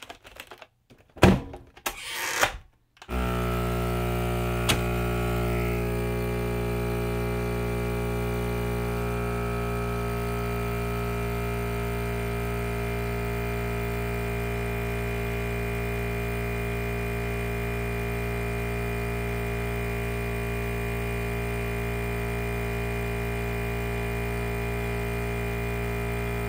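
A few knocks, then about three seconds in a FoodSaver vacuum sealer's pump starts and runs with a steady hum, its pitch settling after a few seconds. The pump keeps running without drawing the bag down tight: the sealer is not pulling a vacuum, so it never moves on to seal.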